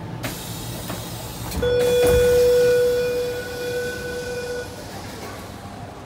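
Electric train horn sounding one steady blast of about two seconds, then fading away, over the low rumble of a train at the platform.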